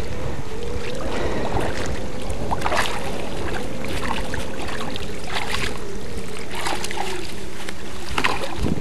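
Shallow river water splashing and sloshing as a large Wels catfish is gripped by the jaw and dragged toward the bank, its tail thrashing, with several short sharp splashes. Underneath, a steady rumble of wind on the microphone and a wavering low hum.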